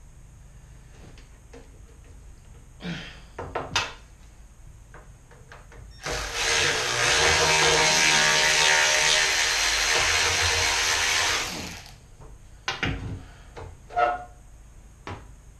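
Power drill running for about six seconds, from about six seconds in, driving a sheet metal screw into the cabinet panel. A few short handling knocks come before and after it.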